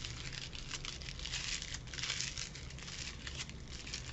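Crepe paper crinkling as a cut strip of it is twisted between the fingers, a light, irregular rustle.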